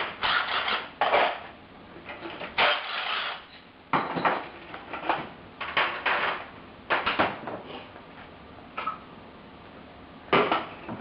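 Metal hand tools and engine parts clinking and clanking against each other in irregular knocks and scrapes.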